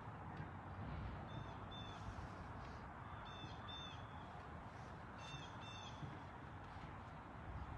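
A bird giving short, harsh calls in pairs, three pairs a couple of seconds apart, over a steady low background hiss.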